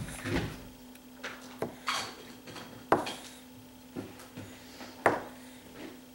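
Metal spoon clinking and knocking against a table and placemat, about half a dozen separate taps, the loudest about three seconds and five seconds in.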